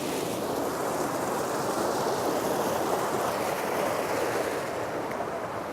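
Whitewater of a stream rushing steadily, swelling a little in the middle.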